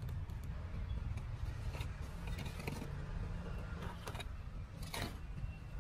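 Small hand trowel scraping and scooping gritty, sandy soil: a handful of short scrapes and clicks, over a steady low rumble.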